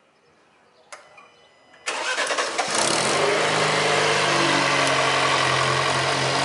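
A single click about a second in, then, about two seconds in, the Alfa Romeo Giulia's turbocharged engine starts and settles into a steady idle. It is breathing through a newly fitted aftermarket air intake, which makes it sound louder than stock.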